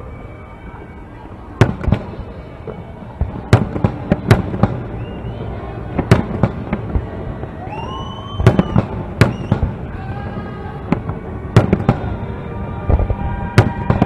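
Aerial fireworks bursting in a string of sharp bangs at irregular intervals, some singly and some in quick pairs, each trailing a short echo.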